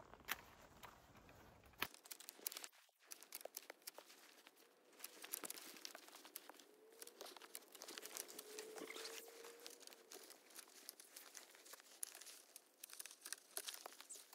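Long-handled loppers snipping thin apple shoots: a scattered run of sharp snips and clicks, with twigs rustling and crackling as cut shoots drop through the branches.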